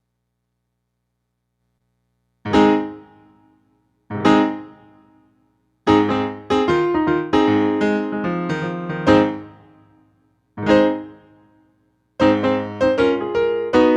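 Piano playing slow, separate chords, each struck and left to ring and fade, beginning about two and a half seconds in after a silence; the playing grows busier towards the end.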